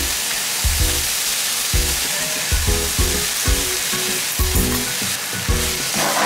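Pork mince, bean sprouts and garlic chives sizzling in a hot frying pan as a starch-thickened seasoning sauce is poured in and stirred through, under background music with a steady beat.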